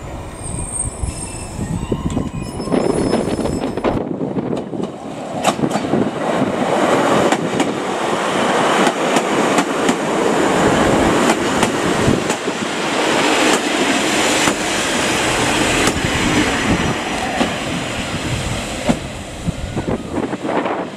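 A Class 150 diesel unit rumbling at the platform, then, after a cut about four seconds in, a long passenger train passing close by at speed: a steady rush of wheel and rail noise with many sharp clicks as the wheels cross rail joints, easing off near the end.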